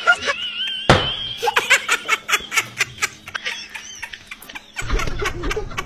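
A person laughing in short, rapid bursts, with a sharp knock about a second in.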